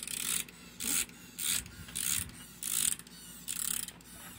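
Wind-up key of a Z Classic WindUps Christopher toy being turned by hand, its clockwork ratchet clicking in short bursts, about six turns in a row, each stroke a fraction of a second long, winding the spring.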